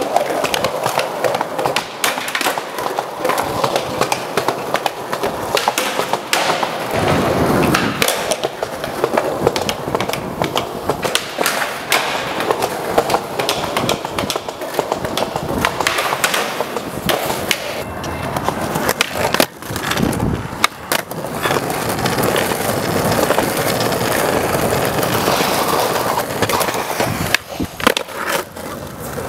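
Skateboard wheels rolling over concrete, broken by repeated sharp clacks of boards being popped and landed.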